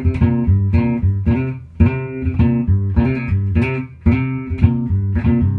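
A repeating riff of low, sustained bass notes, each starting with a sharp attack, about two notes a second.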